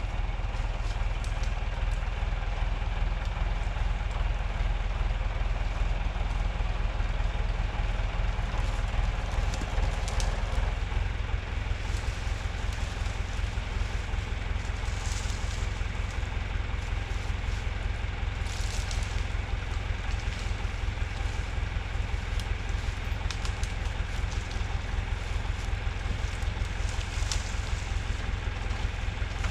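Tractor engine running steadily during log skidding. About ten seconds in its sound changes, settling into an even, pulsing low throb. A few short, sharp noises sound over it.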